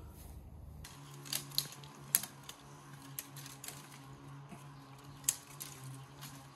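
Scattered light clicks and taps, a few of them sharp, over a faint steady hum.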